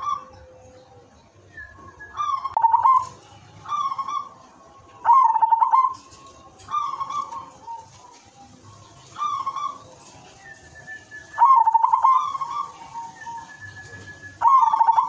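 Silver-morph zebra dove (perkutut) cooing: seven short rolling coo phrases, each a quick trill of notes, repeated every one to three seconds.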